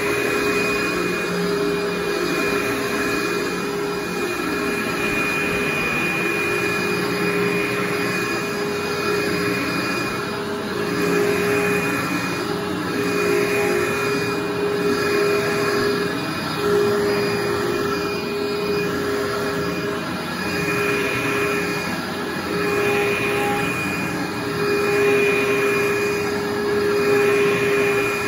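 Upright vacuum cleaner running with a steady motor whine, pushed back and forth over carpet so the sound swells and dips every couple of seconds.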